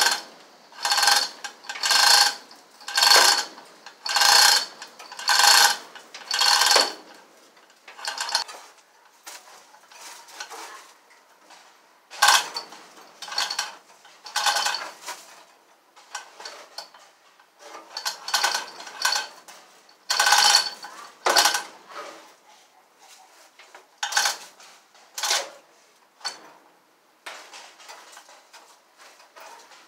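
Manual chain hoist worked by hand, lowering a car body onto its frame: the hand chain rattles and clinks through the hoist in a steady run of pulls about one a second, then in shorter groups with pauses between.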